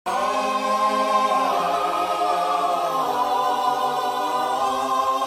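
A choir of voices singing a slow chant in long held notes, shifting pitch every second or so.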